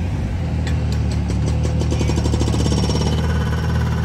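Engine of a homemade jet-ski-hull go-kart running steadily under way. A fast rattling clatter rides over it for the first couple of seconds.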